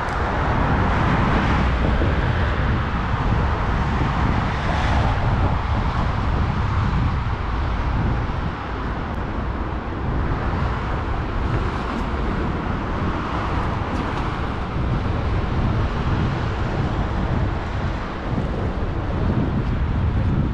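City road traffic: cars driving past on a multi-lane avenue, the sound swelling and fading as each passes, over a steady low rumble with wind buffeting the microphone.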